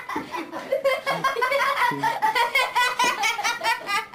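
A person laughing hard in quick, repeated bursts.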